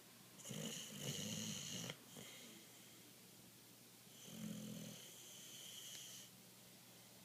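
Boxer dog snoring in its sleep: two snoring breaths, one near the start and one about four seconds in. Each is a low fluttering rattle with a thin high whistle over it.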